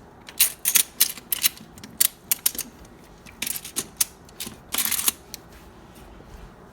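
Plastic magnetic toy blocks clicking and clacking together as they are handled and snapped into place: a string of sharp, irregular clicks, with a denser rattling run about three and a half to five seconds in.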